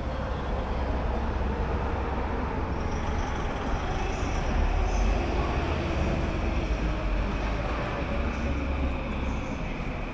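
Steady rumble of city vehicles or a passing train, swelling a little around the middle and easing off near the end.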